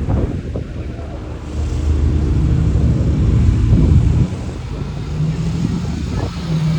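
Ferrari engine running, its sound building for a couple of seconds and dropping off sharply about four seconds in, then running on steadily at a lower level.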